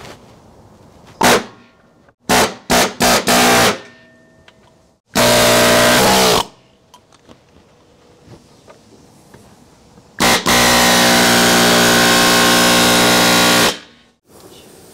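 Air-powered hand tool on a compressor hose, triggered in bursts and spinning at a steady high speed. There are a few quick blips, then a run of over a second about five seconds in, and a longer run of about three and a half seconds near the end.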